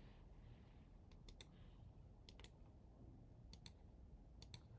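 Faint computer mouse clicks, about four of them spread through a few seconds, each a quick double tick of button press and release, over a low room hum.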